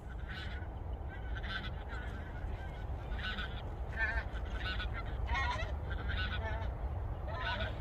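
A flock of birds calling: a string of short, quick calls, one after another through the whole stretch, over a steady low rumble.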